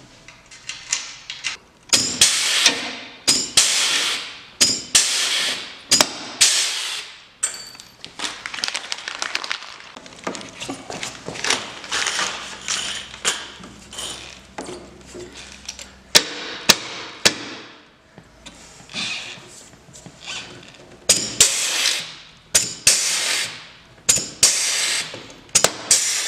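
Pneumatic rivet gun setting long pop rivets into an aluminium skid plate: repeated short hissing strokes, each with a sharp snap as the rivet stem breaks off.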